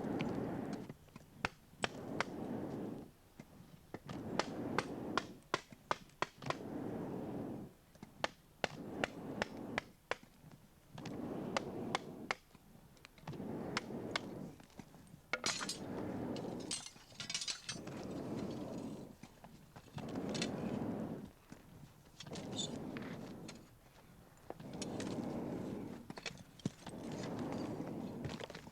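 A clay iron-smelting furnace being broken open with tools: many sharp knocks and clicks, among scraping or rushing sweeps that come about every two seconds.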